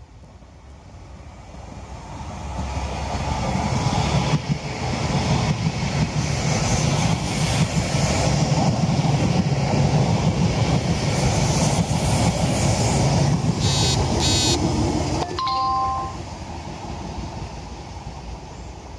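Multiple-unit passenger train passing close by: its running and wheel noise builds over a few seconds, stays loud for about ten seconds with a quick run of clicks near the end, then cuts off suddenly. A brief two-note tone follows just after.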